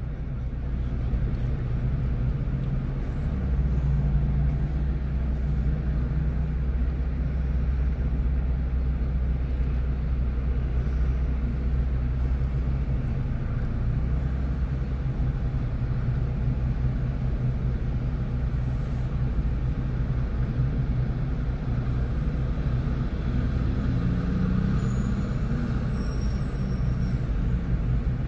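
A vehicle engine idling with a steady low rumble, with road traffic behind it.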